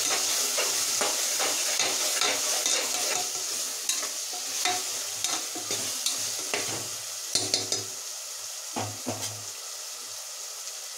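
Vegetables and spice powders sizzling in oil in an aluminium pressure cooker while a spoon stirs and scrapes against the pan. The stirring stops near the end and the sizzle fades.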